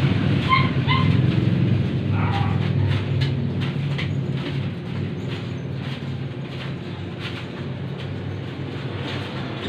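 A motor engine running steadily and slowly fading away, with a few short high yelps in the first couple of seconds.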